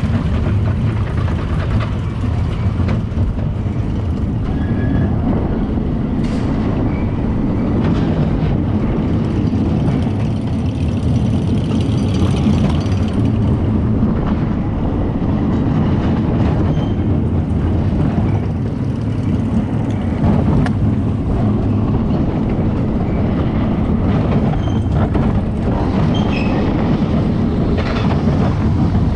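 Reverchon spinning roller coaster car running along its steel track: a steady rattling rumble of wheels on the rails.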